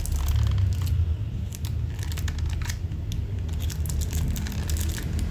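Handling of a lighter's packaging: crinkling and rustling with many small, sharp clicks and crackles, over a steady low hum.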